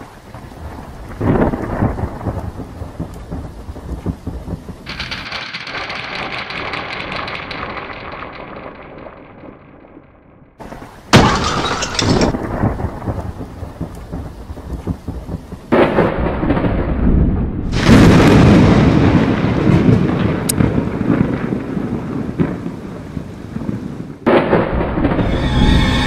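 Thunderstorm: rain falling with repeated thunder, sudden loud claps about 11, 16 and 18 seconds in and again near the end.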